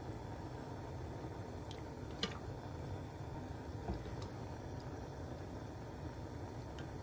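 A wooden spoon stirring seaweed soup in a pot: soft liquid squishing, with a few light knocks of the spoon against the pot, the loudest about two seconds in, over a steady low hiss.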